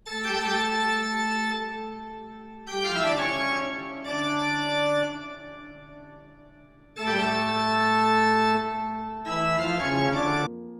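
Background music: slow, held organ-like keyboard chords, a new chord starting every two to three seconds.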